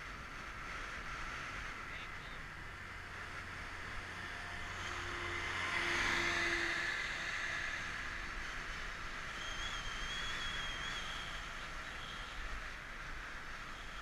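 Steady rush of wind and tyre noise from a touring bicycle coasting down an asphalt road. An oncoming motor vehicle passes about six seconds in, its engine rising and fading. A faint high tone follows for a second or two.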